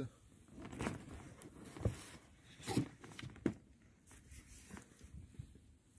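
Handling noise in a small rowing boat: a few short knocks and scrapes, about a second apart, with faint rustling between them as gear and birch poles are moved about.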